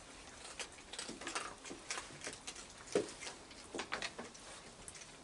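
Raccoons eating dry food and moving about on a wooden deck: faint, irregular crunches and clicks, with one sharper click about three seconds in.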